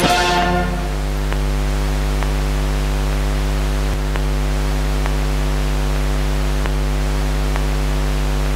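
A steady low hum with hiss, and a faint tick about once a second.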